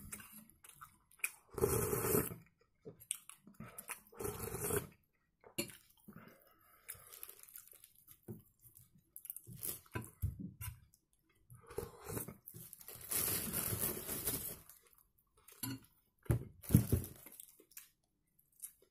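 A person eating pea soup: spoonfuls taken with slurps, then chewing and mouth noises in scattered short bursts. Near the end he bites into and chews smoked sausage.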